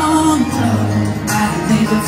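Live acoustic guitar accompanying a male singer's vocal in a concert hall, the music running on between sung lines.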